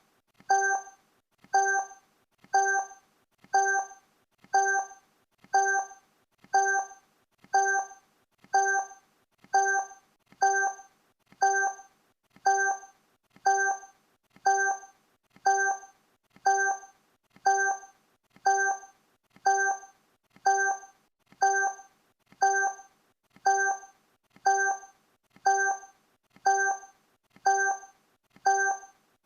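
Countdown timer's tick sound effect: a short, pitched tick once a second, evenly spaced, each fading quickly.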